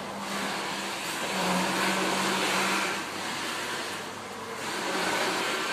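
Road traffic passing: a steady rushing noise that swells twice, once about a second in and again near the end, over a faint steady hum.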